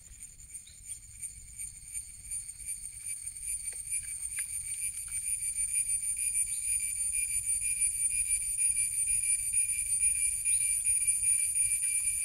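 Insects droning in leafy undergrowth: a high, fast-pulsing buzz that swells steadily louder, with a few faint clicks.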